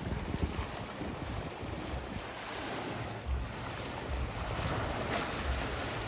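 Small waves washing against a rocky shoreline, with a slightly fuller wash about five seconds in. Wind buffets the microphone with uneven low rumbles.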